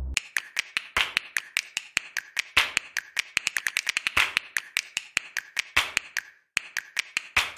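Rapid, uneven clicking and tapping, several sharp clicks a second, with a brief pause near the end.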